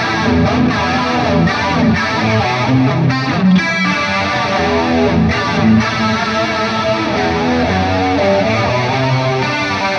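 Overdriven electric guitar playing a run of notes through a Bogner Ecstasy red-channel amp model on a TONEX, with delay and chorus on for an 80s tone.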